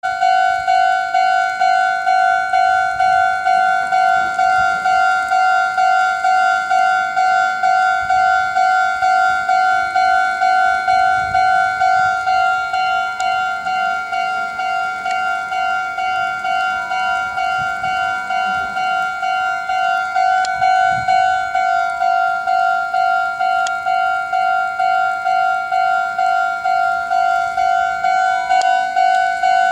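Japanese railway level-crossing alarm, its electronic bell sounding one steady pitched tone in a fast, even beat, signalling that the crossing is closed for an approaching train.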